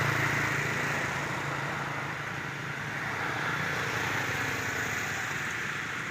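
A motor engine's low hum, fading after about a second, over a steady high hiss.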